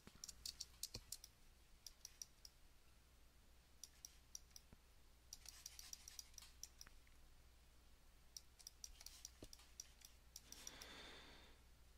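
Faint clicking of a computer mouse and keyboard, in several scattered runs of quick clicks.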